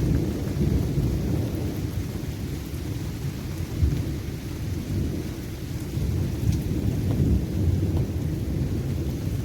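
Continuous low, rumbling roar from a severe thunderstorm overhead: the strange roaring wind sound heard while little wind or rain reaches the ground. No sharp thunder cracks, only a steady rumble that swells and eases.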